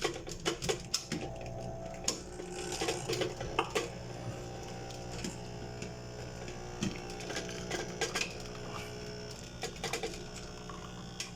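Nespresso capsule coffee machine running with a steady electric hum, with light clicks and knocks scattered through.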